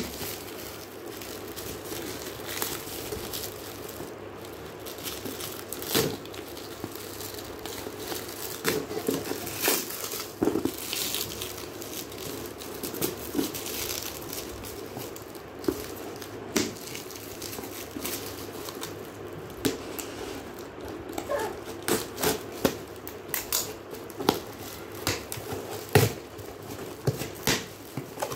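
Plastic cling-film wrap on a cardboard parcel crinkling and tearing as scissors cut through it, with irregular sharp snips and clicks from the blades and the cardboard.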